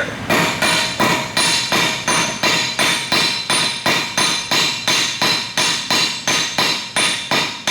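Hammer blows on hot steel bar stock over an anvil, drawing out a taper on square stock: a steady rhythm of about three strikes a second, each with a bright metallic ring.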